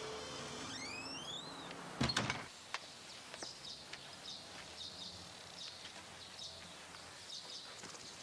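The end of a held music note fades out, a rising creak comes just under a second in, and a wooden door shuts with a short clatter of knocks about two seconds in. After that, faint bird chirps repeat.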